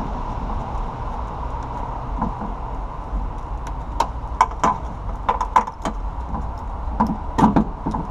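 Sharp clicks, knocks and rattles of plastic and metal parts inside a car door as the window regulator's wiring harness connector is worked loose. They come in a scattered run starting about halfway through, over a steady background hum.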